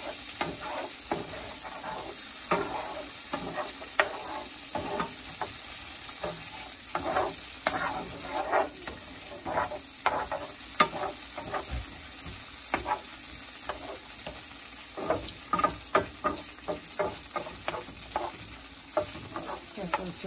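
Sliced onions and bell peppers sizzling in oil in a frying pan, with a spatula scraping and knocking against the pan at irregular moments as they are stirred.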